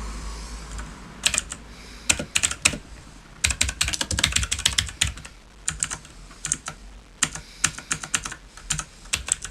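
Typing on a VicTop 87-key mechanical keyboard with blue switches, which give a clicky keystroke. Quick, irregular runs of sharp clicks with short pauses between them start about a second in.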